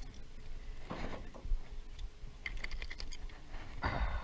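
A quick run of light clicks and taps as a small bass hooked on a fishing line is lifted into the boat and handled. There are short rushes of noise about a second in and again near the end.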